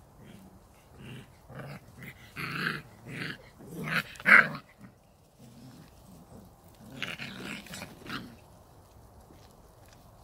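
Samoyed puppies growling while they play-fight: a string of short growls, the loudest about four seconds in, and another cluster of growls about seven seconds in.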